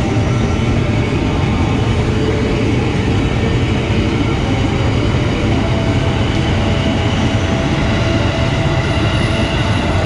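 A ten-car JR 205 series electric commuter train (KRL) passing close by, a steady loud rumble of wheels and running gear on the rails.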